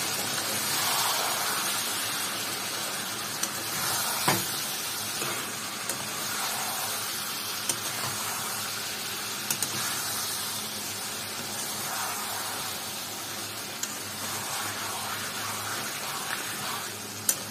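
Chicken in masala paste with a little added water sizzling in a metal wok while being stirred, with a few sharp clicks of the metal spatula against the pan.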